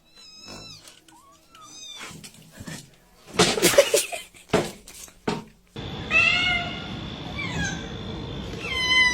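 Domestic cats meowing: two short meows early on, then a loud harsh noisy burst a little past the middle. Near the end comes a long, drawn-out meow that falls in pitch.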